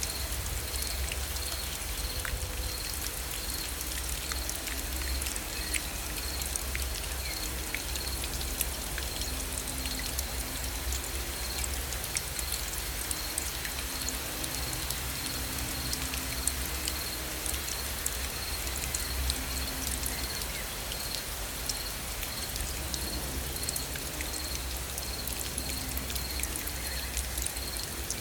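Steady rain falling, with many small raindrop ticks over a constant wash and a low rumble underneath.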